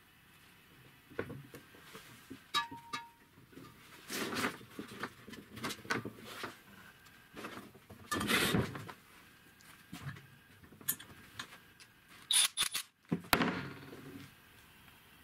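Workshop handling sounds of brass air fittings and plastic hose: scattered clicks and knocks on a wooden bench, a brief squeak, and several louder scraping or rustling noises as parts are moved.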